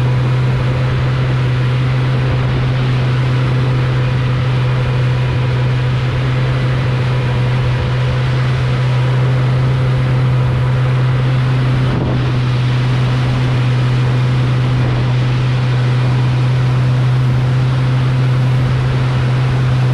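Watercraft engine running at a steady speed: an unchanging low drone with some water and wind noise over it.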